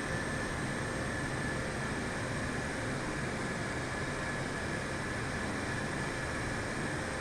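Jet airliner noise holding steady: a constant rush with a faint whine at one pitch.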